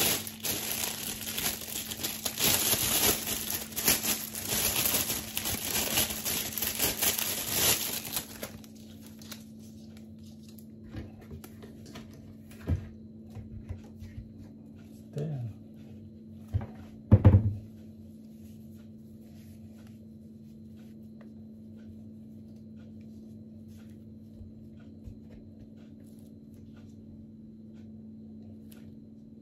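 Packaging being crinkled and rustled by hand as an item is unwrapped, with dense crackling that stops about eight seconds in. After that, a few light clicks and one louder bump about seventeen seconds in, over a faint steady hum.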